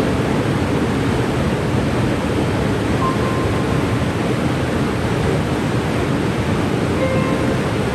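Waterfall rushing steadily, an even roar of falling water with no change in level. A couple of faint, brief tones come through it about three seconds in and again near the end.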